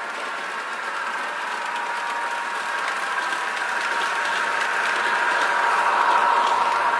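Simulated KiHa 261 diesel railcar engine sound played by an ESU LokSound 5 decoder through an HO model train's small speaker, running steadily as the model drives past and growing louder as it comes closer.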